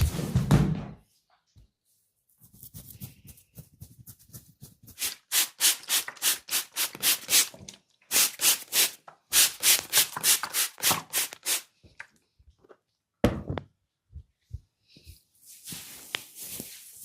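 Hands rubbing and working the hair and scalp in an oil head massage, in quick rhythmic strokes about three a second, with two runs of strokes and a pause between them. One sharp thump comes about thirteen seconds in.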